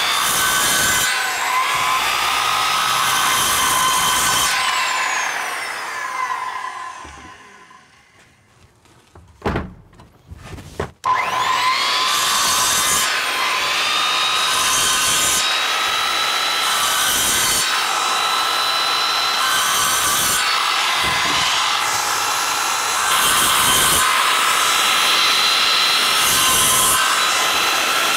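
Circular saw cutting slots across PVC pipe, its motor running at a steady whine with a surge each time the blade bites into a pipe. About six seconds in it winds down and stops, a few knocks follow, then the saw spins up again about eleven seconds in and carries on cutting.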